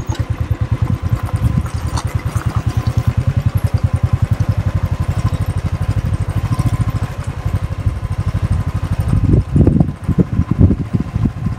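Royal Enfield Thunderbird 350's air-cooled single-cylinder engine running at low revs on the move, a quick, even beat of exhaust pulses. From about nine seconds in the sound grows louder and more uneven.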